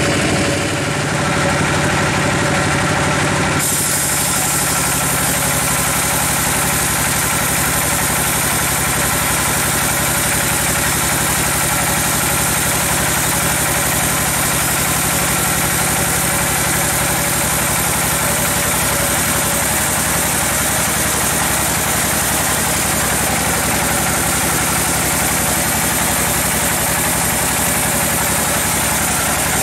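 Large log bandsaw running steadily as it saws lengthwise through a giant teak log. About three and a half seconds in, a harsher, brighter hiss joins the machine hum and holds steady.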